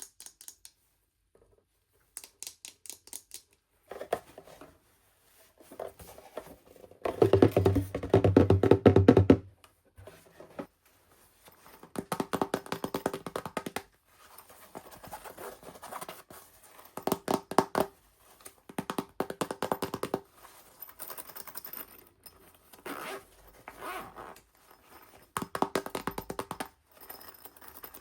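Bursts of dense crinkling and rustling from packaging being handled and opened, with short quiet gaps between.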